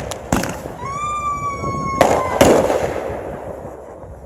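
Consumer fireworks going off: a bang, then a whistle lasting about a second that dips slightly in pitch and ends in a loud bang, with another bang right after. The noise then fades away toward the end.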